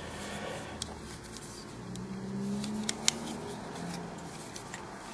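Scattered light metallic clicks and scrapes from a Leatherman Rebar multitool being handled, over a faint low hum.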